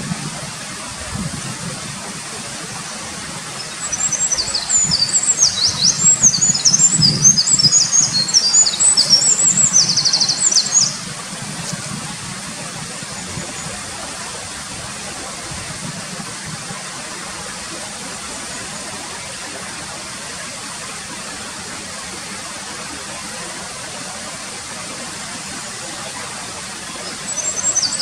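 Eurasian wren singing one long, fast song of high notes and trills, starting about four seconds in and lasting about seven seconds, with a second song beginning near the end. Under it runs the steady rush of a mountain stream.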